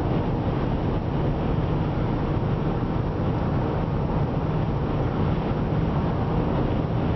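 Steady road noise of a car travelling at highway speed, heard from inside the cabin: an even low drone of tyres and engine.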